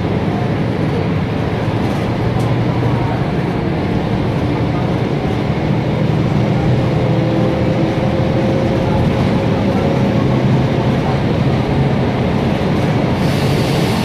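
Mercedes-Benz OF-1724 bus's OM 926 LA inline six-cylinder diesel engine running steadily, heard from inside the bus.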